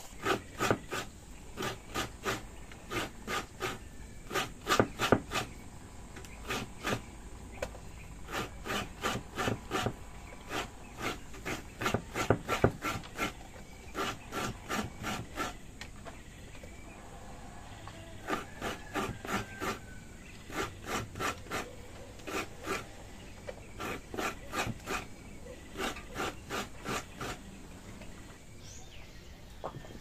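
A coconut half being grated by hand, its meat scraped against a serrated grater blade. The rasping strokes come in runs of about three a second, with short pauses between the runs.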